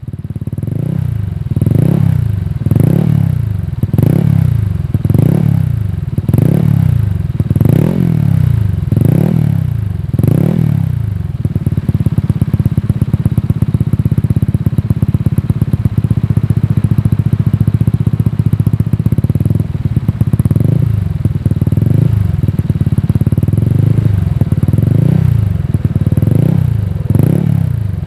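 Motorcycle engine through an aftermarket racing exhaust, revved in quick throttle blips about every second for the first ten seconds or so. It is then held at a steady engine speed for about eight seconds, and the quick blips start again about twenty seconds in.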